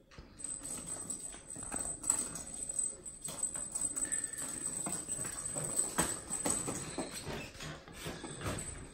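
A tortoiseshell kitten's paws and a small toy ball pattering and tapping on a wooden parquet floor: quick, irregular light knocks as the kitten scampers and bats the ball.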